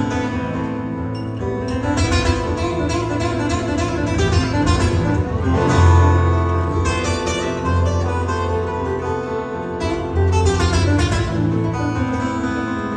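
Two amplified acoustic guitars strummed and picked together live, an instrumental passage with no singing.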